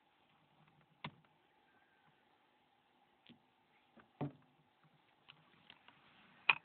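Scattered, faint, sharp clicks and taps of small tools against the plastic and metal parts of a Nokia N93 phone being taken apart, about five in all, the loudest near the end.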